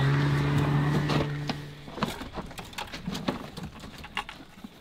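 A snowmobile engine running steadily, fading out about two seconds in. Then scattered knocks, clicks and rattles of gear being handled inside a cargo van.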